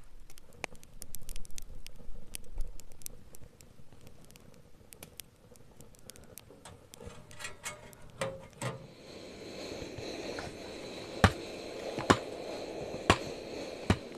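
Firewood crackling and popping inside a small steel wood-burning tent stove, with a short run of clatter about eight seconds in as the stove door is handled. After that a steady hiss sets in, with four sharp, loud clicks near the end.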